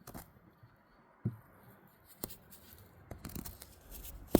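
A few scattered light clicks and knocks of handling, with a sharper knock near the end.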